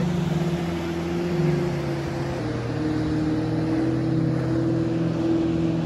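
Motorboat engine running steadily as the boat tows a water-skier past, its note shifting a little about two seconds in.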